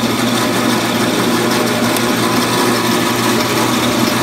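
Guide Gear homeowner-grade meat band saw running steadily, its blade cutting through a bone-in deer loin.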